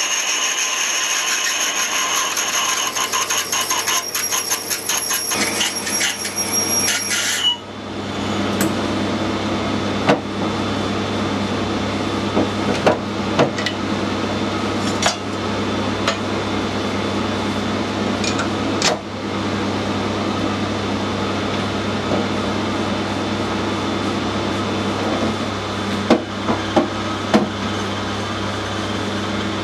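A sharp 11.2 mm drill cutting into a brass oiler, which squeals and chatters for about the first seven seconds, the way brass grabs a sharp drill. Then the cutting stops abruptly and the machine runs on with a steady hum and a few light knocks.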